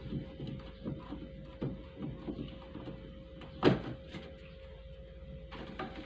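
Plastic drain-valve parts under a washing machine's tub being worked by hand: irregular small knocks and clicks as a stiff clip and housing are pried at, with one sharper snap a little past halfway. A faint steady hum runs underneath.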